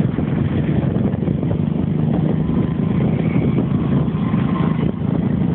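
Steady engine and road noise heard from on board a moving vehicle in traffic: a continuous low rumble.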